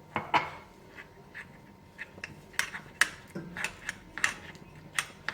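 A spoon clinking and scraping against a bowl in irregular taps, stirring ground ajwain into honey.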